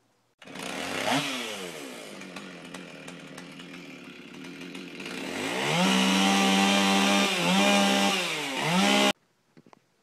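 Stihl two-stroke chainsaw running: a quick rev near the start, a lower running speed, then held at full throttle from about halfway, dipping twice before it stops abruptly near the end.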